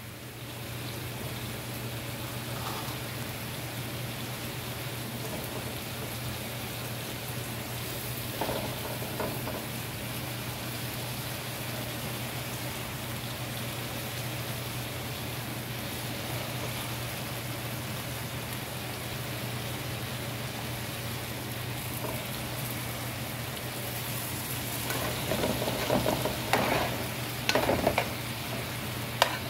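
Sliced mushrooms and onions sizzling steadily as they fry in a pan, their water already cooked off, with cauliflower florets added. Near the end a metal spoon stirs the pan with a few clinks and scrapes.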